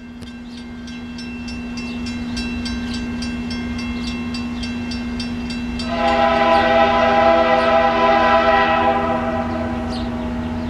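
Norfolk Southern freight locomotive approaching a grade crossing, growing louder, over the crossing bell ringing rapidly; about six seconds in its air horn sounds one long blast lasting about three and a half seconds.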